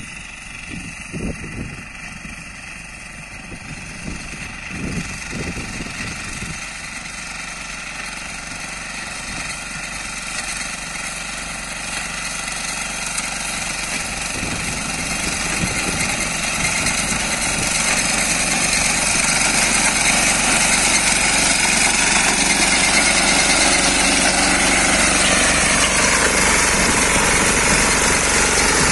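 Diesel engine of a BCS self-propelled reaper binder running steadily while it cuts wheat. It grows louder as the machine comes close, and its pitch drops near the end as it passes.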